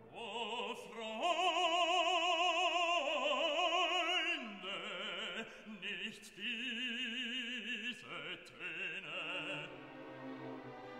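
Background music: an operatic voice singing long held notes with a wide vibrato, changing pitch every second or so.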